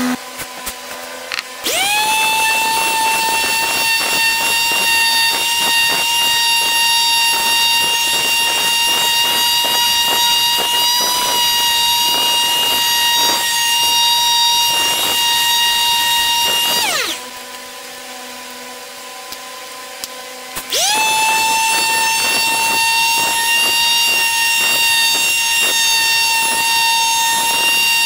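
Porter-Cable palm sander switching on and running with a steady high-pitched whine, its pad scratching across a wooden board. About 17 s in it winds down, pitch falling, then starts again some three seconds later.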